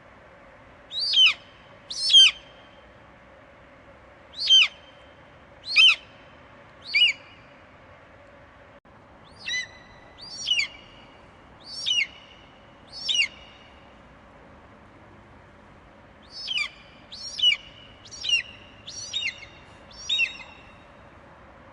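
Eagle giving a series of short, shrill screeches, each falling steeply in pitch, about one a second in four bouts separated by brief pauses, over a faint steady background hiss.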